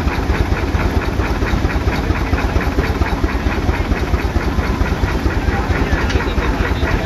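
Advance-Rumely steam traction engine running steadily under belt load while driving a threshing machine, with an even, rapid beat of exhaust chuffs several times a second.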